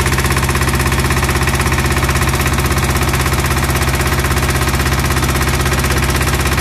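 Small engine mounted inside a wooden boat, running steadily and driving the boat at speed, with a rapid, even beat.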